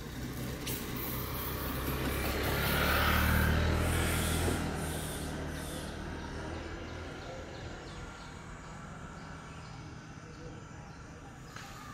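A motor vehicle's engine passing by, a low hum that grows louder to a peak about three to four seconds in and fades away by about seven seconds.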